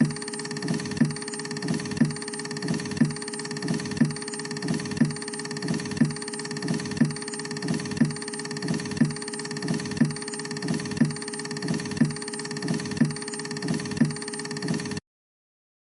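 CD/DVD printer running: a steady mechanical hum with a regular pulse about once a second. It cuts off abruptly near the end.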